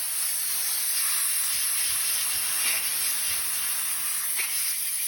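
A steady, continuous hiss of a pressurised spray, strongest in the high treble.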